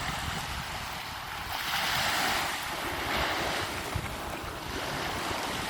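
Sea waves washing onto a beach, the surf swelling about two seconds in and again a second later, with wind rumbling on the microphone.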